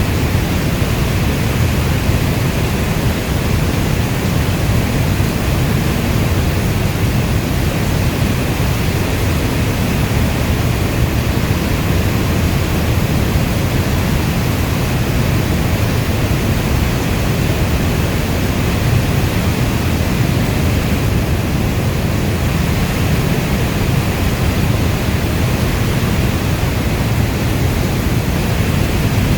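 Steady heavy rainfall: a dense, even rush with no separate drops or thunder, weighted toward the low end like brown noise.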